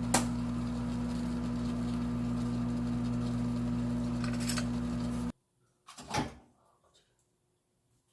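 Microwave oven running with a steady low electrical hum, which cuts off abruptly about five seconds in; a short clunk follows about a second later.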